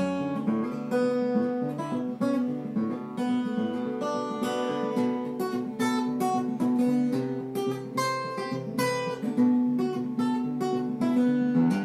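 Acoustic guitar strummed in an instrumental break of a folk song, steady chord strokes with no singing.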